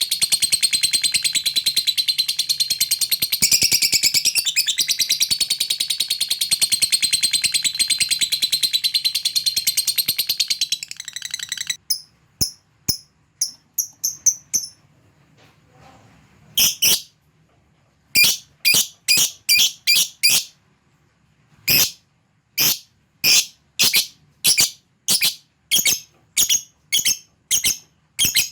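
Lovebird giving a long, rapid, continuous chattering trill ("ngekek panjang") that cuts off about twelve seconds in, followed by a series of separate short, sharp high chirps at roughly one or two a second.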